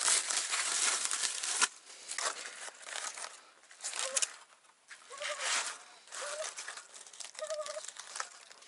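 Aluminium foil being unwrapped and crinkled by hand: a dense crinkling for the first couple of seconds, then shorter separate rustles as the parcel is peeled open.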